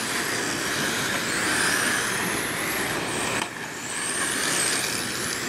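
Brushless electric motors of 1/10-scale RC dirt oval late model race cars running at speed, a high-pitched whine that rises and falls as the cars come past on and off the throttle, dipping briefly about three seconds in.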